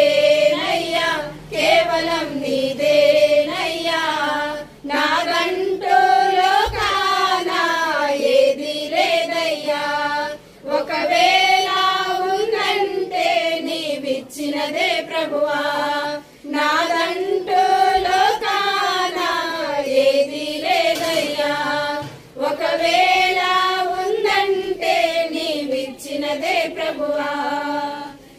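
A small group of women singing a Telugu Christian hymn together from hymnbooks, in phrases of about two seconds with brief breaks for breath.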